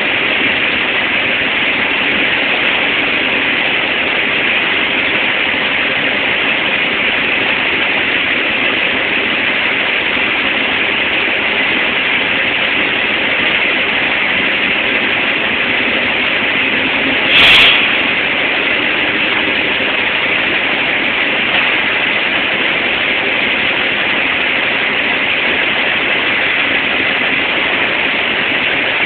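Steady, loud hissing roar of steel-mill machinery around a slag-pot crane and locomotive, with one short sharp crack about seventeen seconds in.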